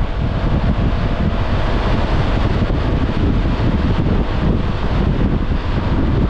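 Steady wind noise on the microphone of a moving Honda ADV 350 scooter, with its engine and road noise underneath.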